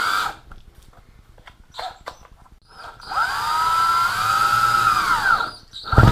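Power drill driving screws into plywood: one run stops just after the start, then after a pause a second run of about two seconds, the motor's pitch rising and then falling as the screw seats. A short thump near the end.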